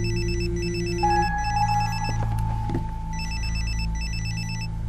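Mobile phone ringing with a fast warbling electronic trill: two rings with a short pause between, the second stopping shortly before the end.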